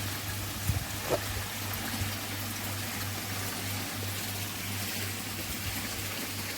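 Water trickling and splashing steadily from a koi pond waterfall, running heavier than usual for a water change, over a steady low hum.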